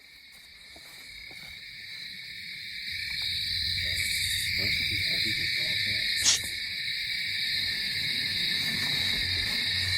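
Night-time woodland insects droning steadily in two high bands, fading up from near quiet over the first few seconds, with a single sharp click about six seconds in.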